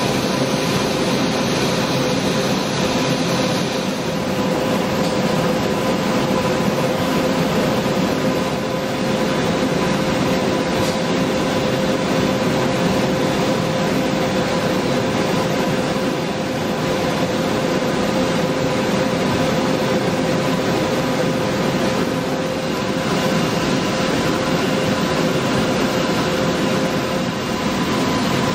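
Röders RXP 501 DS five-axis machining centre grinding the inside bore of a metal ring with a small grinding pin on its high-speed spindle: a steady whine over a constant grinding noise. The highest part of the noise eases about four seconds in.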